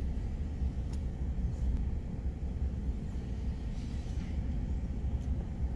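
Vehicle cabin noise while driving: a steady low rumble of the engine and tyres on the road, heard from inside the car.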